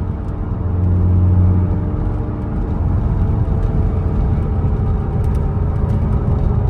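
Cabin sound of a C5 Corvette cruising: the 5.7 L V8's engine and exhaust drone with road noise. The drone swells strongly in the first second or two, then settles into a steady rumble. Faint light rattles come near the end, which the driver puts down to the plastic of the targa top.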